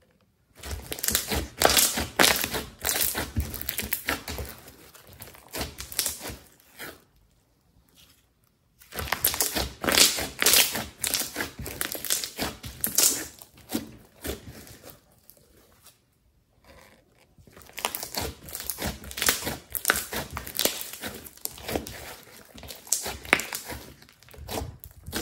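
Hands squishing, stretching and kneading glossy slime, giving a dense run of small wet crackles and pops. It comes in three spells with short pauses between.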